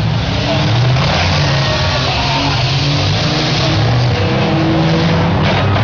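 Several demolition derby cars' engines running and revving together on the dirt arena, a steady loud engine drone.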